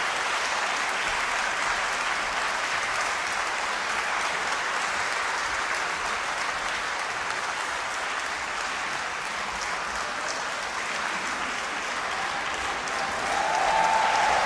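Concert-hall audience applauding: dense, steady clapping that swells again near the end.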